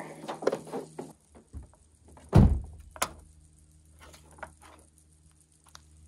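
An SUV's passenger door is shut with one heavy thunk about two and a half seconds in, followed about half a second later by a sharp click. A faint low hum runs underneath.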